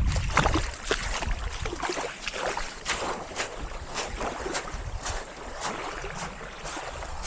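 Footsteps at a walking pace, about two a second, over a steady hiss, with wind buffeting the microphone most strongly at the start.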